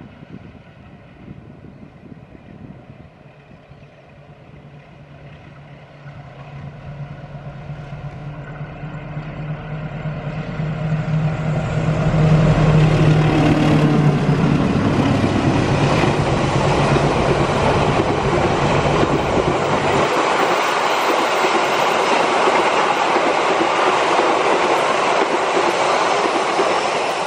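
A CC 201 diesel-electric locomotive hauling a passenger train approaches and passes close by: its engine drone grows louder to a peak about twelve seconds in, then the carriages roll past with a steady rumble and clatter of wheels on the rails. The engine hum drops out about twenty seconds in while the carriages keep rolling by.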